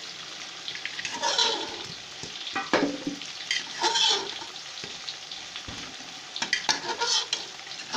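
Boiled beef pieces sizzling as they are dropped into hot oil with a fried onion, spice and yogurt masala. The steady hiss flares up in louder spurts every second or two, with a few short knocks.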